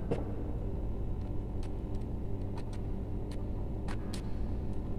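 Light, scattered clicks and taps of a screwdriver and wire being worked at the screw terminals of a plastic triple light switch, over a steady low background rumble.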